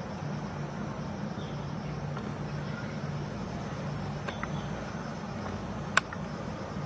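Steady low mechanical hum with a few faint clicks, and one sharp click about six seconds in.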